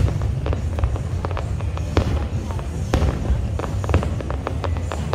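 Fireworks display: a dense low rumble of shell bursts, with many sharp bangs and crackles over it, the loudest at the start and about two and three seconds in.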